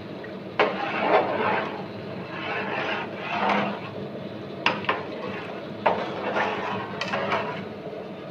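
Ladle stirring a watery spice mixture in an aluminium pot, swishing through the liquid and knocking against the metal several times.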